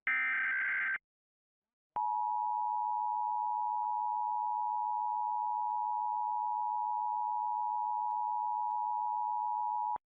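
Emergency Alert System signal for a National Periodic Test. First comes the last SAME header burst of digital data tones, lasting about a second. After a second's pause, the two-tone EAS attention signal (853 and 960 Hz) sounds steadily for about eight seconds.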